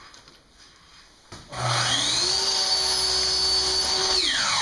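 A power tool's electric motor starts about one and a half seconds in, rises quickly in pitch, runs steadily for about two seconds, then winds down near the end.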